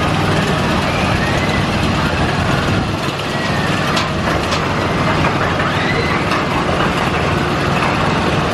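Wild Mouse roller coaster ride heard from the car: a loud, steady rush of wind and rumble, with faint high squeals that rise and fall.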